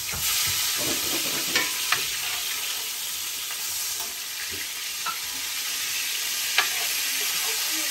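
Pieces of young groundhog meat sizzling steadily in hot grease in a skillet, with a few sharp clicks of a utensil against the pan as the pieces are turned.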